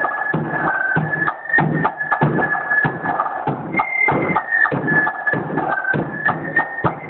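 Band music: a row of side drums and a big bass drum playing a march rhythm together. Over the drums runs a high melody of held notes that steps between a few pitches.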